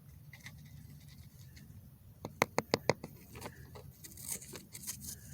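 A rock being handled and rubbed in the fingers: a quick run of about five sharp clicks a little over two seconds in, then faint scattered scratching and clicking.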